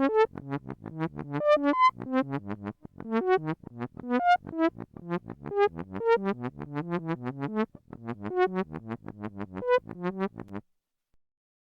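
Rapid string of short, low-pitched synthesized electronic tones at random pitches, several a second, like a sci-fi computer's data or telemetry readout. It cuts off abruptly near the end.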